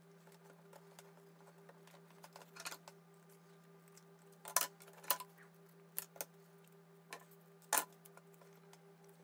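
Scattered sharp clicks and taps from small plastic model parts and hand tools being handled on a cutting mat, about eight in all, the loudest near the end, over a steady low hum.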